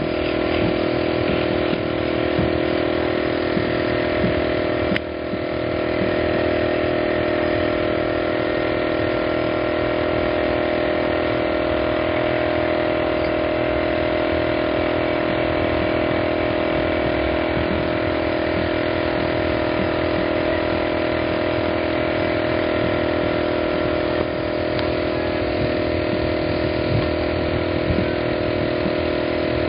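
Air compressor feeding a paint spray gun, running with a steady, even hum that dips briefly twice.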